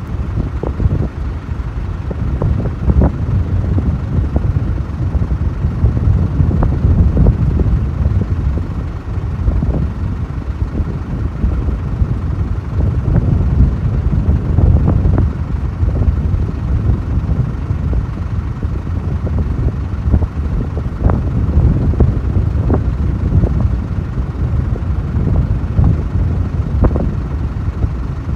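Wind buffeting the microphone: a heavy low rumble that rises and falls in uneven gusts.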